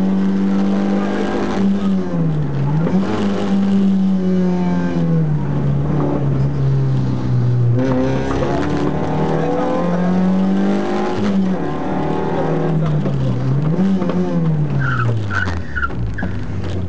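Rally car's engine heard from inside the cabin, held at high revs under hard driving, with two brief dips as the driver lifts or changes gear, and the revs falling away over the last few seconds as the car slows.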